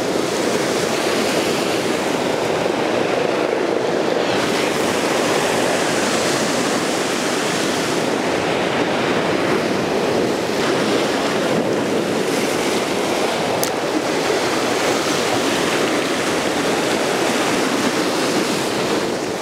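Ocean surf washing against a rocky shoreline, a steady, unbroken rush.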